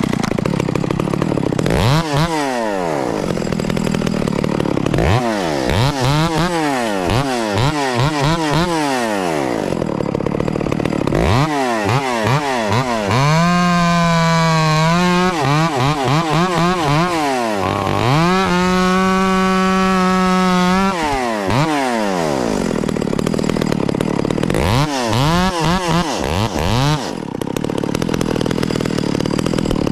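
Echo 670 two-stroke chainsaw revved in repeated quick throttle blips, then held at full throttle for two stretches of a few seconds each, about a third and two-thirds of the way through, as it saws through wood.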